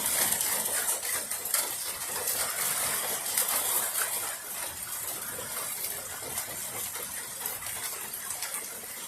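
Rain falling: a steady hiss and patter of many small drops, easing slightly after the first few seconds.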